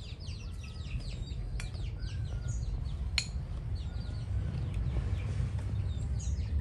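Small birds chirping in quick series, over a steady low rumble, with two sharp clicks about a second and a half and three seconds in.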